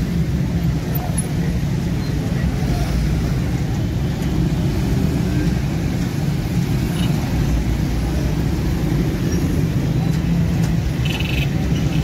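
Busy road traffic of motorcycles, auto-rickshaws and trucks passing, a steady rumble of engines and tyres. A short high horn toot sounds about eleven seconds in.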